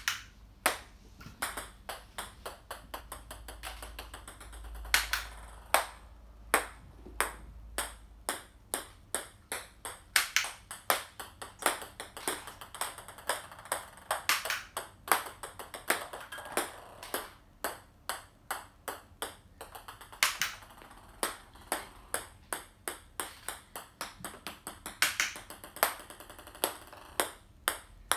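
Small hollow plastic balls bouncing again and again on a hardwood floor: runs of sharp, ringing clicks, one series after another.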